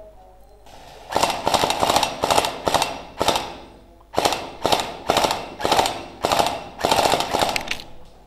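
Gel blaster firing about a dozen short bursts of rapid full-auto shots, starting about a second in, with a brief pause midway.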